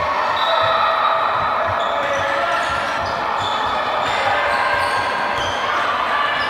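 Basketball being dribbled on a hardwood sports hall court, low bounces about two to three times a second, with players' shoes squeaking sharply on the floor.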